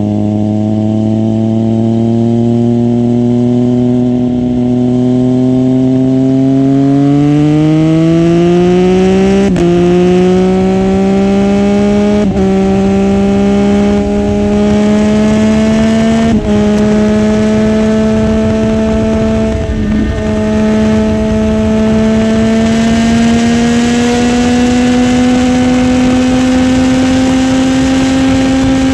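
Triumph Street Triple's three-cylinder engine accelerating hard through the gears, heard from on board: its pitch climbs, drops back at four quick upshifts in the first twenty seconds, then keeps rising slowly in the top gear, over a steady rush of wind.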